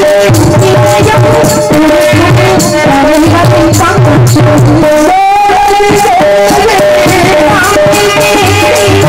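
Tamil drama stage accompaniment: a harmonium holding steady notes, a tabla beating a rhythm and small hand cymbals clinking, with a wavering melodic line about five seconds in.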